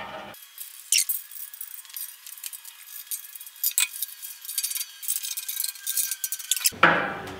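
Light metallic clinks and ticks of steel bolts and a hand tool being worked into the corners of a bandsaw's stand, heard thin and tinny with no low end.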